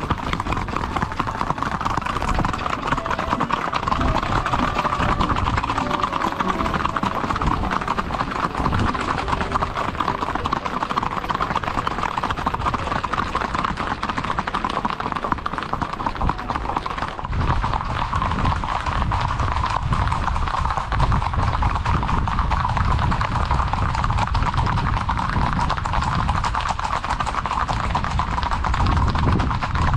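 Hooves of ridden horses clip-clopping in a quick, steady patter, several horses together.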